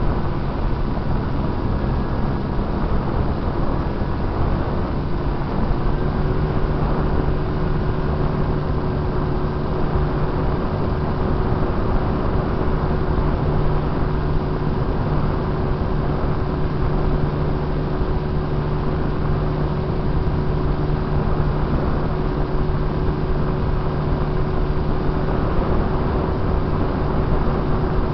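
RC plane's motor and propeller running steadily, heard from a camera on board, with a constant rush of wind over the airframe. The drone of the motor rises slightly about six seconds in and then holds.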